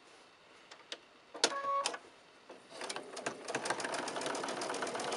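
Electronic home sewing machine: a short beep about a second and a half in, then the machine starts stitching a seam through quilting cotton, its needle ticking rapidly and evenly. It gathers speed over a second or so and then runs steadily.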